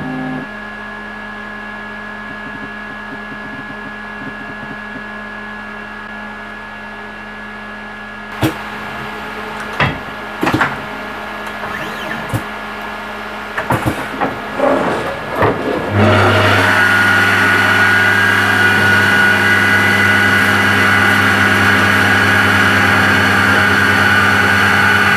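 CNC milling machine: a steady hum, then a run of clicks and knocks from about eight seconds in. About halfway through, the spindle starts, and it runs loud and steady to the end with a high whine and the hiss of coolant mist spraying.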